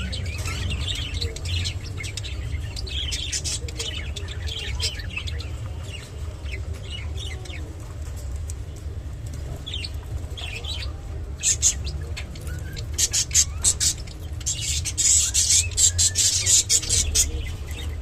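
Budgerigars chirping and chattering in short, high, scattered calls, with runs of sharp clicks in the second half over a steady low hum.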